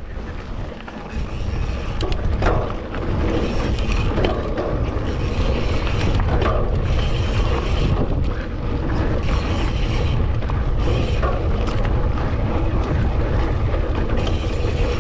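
Mountain bike descending a dirt trail: steady tyre noise over the ground with scattered knocks and rattles, and wind buffeting the microphone in a low rumble.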